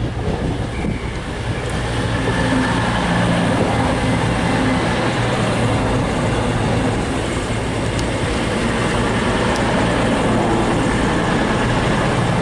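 Class 221 Super Voyager diesel multiple unit running past at low speed as it arrives at a platform. Its underfloor diesel engines are running and its wheels are rumbling on the rails. The sound builds over the first couple of seconds as the cars come alongside, then holds steady.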